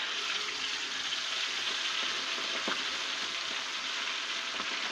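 Quails frying in hot oil: a steady, dense sizzle.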